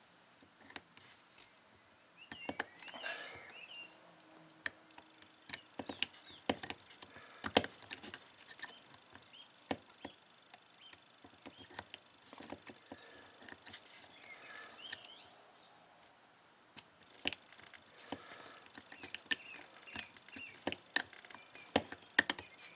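Irregular small clicks and ticks of a combination padlock's number dials being turned one notch at a time, with the lock held under tension while it is being picked.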